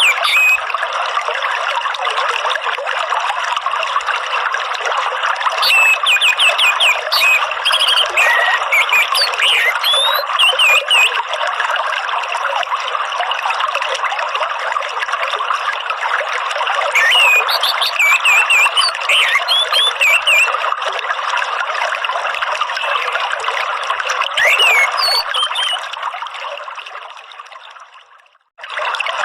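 Steady trickling running water with bursts of quick, high chirping bird notes three times. The whole sound fades out near the end and starts again a moment later.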